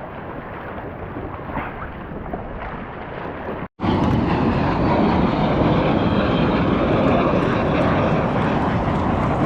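Steady wind rushing over the microphone, with water noise. It cuts out briefly near the four-second mark, then comes back louder.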